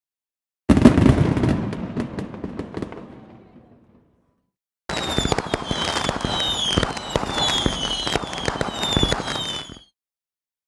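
Fireworks: a sudden loud bang whose rumble dies away over about three seconds, then about five seconds of dense crackling with short falling whistles about twice a second, which stops abruptly.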